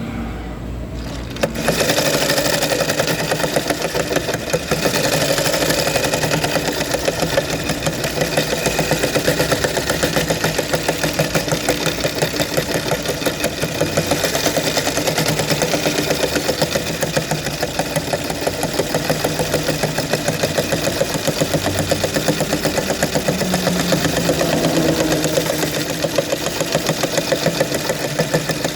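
Sewing machine stitching: a fast, even run of needle strokes that starts suddenly about a second and a half in, over a low motor hum.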